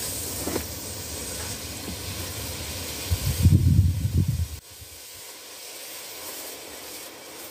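Several novelty smoke balls hissing steadily as they burn and pour out smoke. A low rumble, the loudest thing here, comes in about three seconds in and stops suddenly about a second and a half later.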